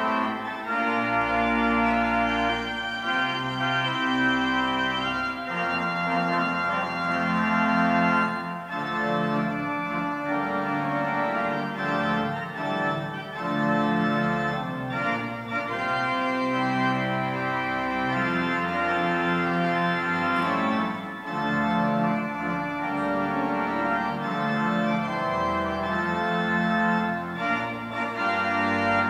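Organ playing a bridal processional in sustained full chords over a held bass line, the chords changing every second or two.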